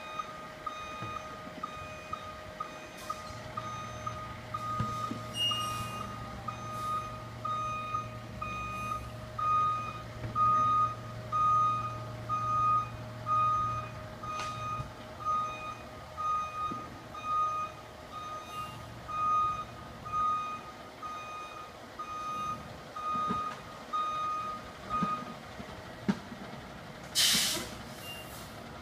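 Fire truck's reversing alarm beeping steadily as the truck backs up, with its engine humming underneath. The beeping stops a few seconds before the end, and a short, loud hiss of air follows, typical of an air-brake release.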